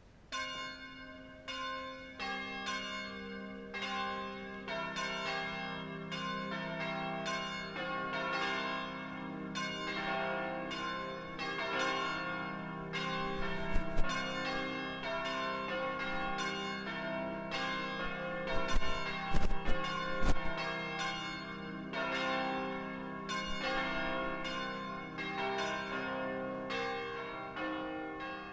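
Bells ringing out in a rapid, steady run of strikes, several a second, over held low tones that change a few times. A few sharp low thumps come through around the middle.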